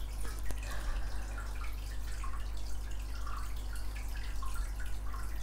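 Quiet room tone: a steady low electrical hum with faint, scattered small ticks.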